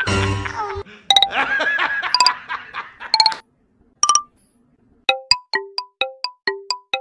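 Background music: a few chime-like dings in the first seconds, a short gap, then from about five seconds a quick run of short plucked, bell-like notes, about four a second.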